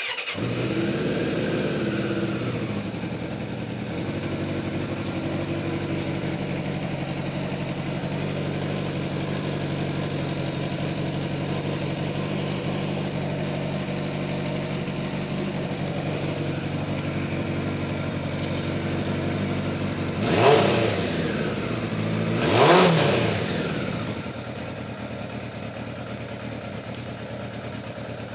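Suzuki GSX600 motorcycle's inline-four engine idling, slightly higher in the first few seconds. About twenty seconds in the throttle is blipped sharply twice, and the idle then settles a little quieter.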